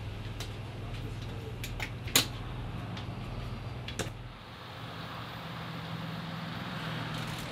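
A steady low hum with a few light clicks and a sharper click about two seconds in, fitting an RV's interior door being pulled shut and latching. About halfway through, the hum gives way to a different steady low drone with a faint hiss.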